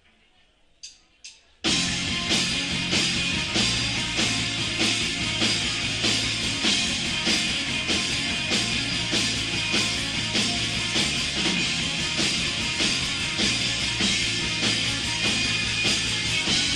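Live rock band playing, drum kit and guitar. Two short clicks come first, then the full band starts loud about a second and a half in and keeps a steady beat.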